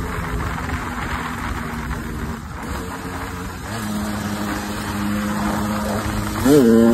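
KTM two-stroke dirt bike engine running, holding a steady note, then revving quickly up and back down near the end, the loudest moment.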